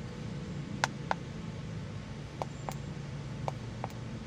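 Keypad buttons on a MaxiScan OBD-II scan tool being pressed while its menu is worked to erase the stored trouble codes: three pairs of short sharp clicks about a second apart, over a low steady hum.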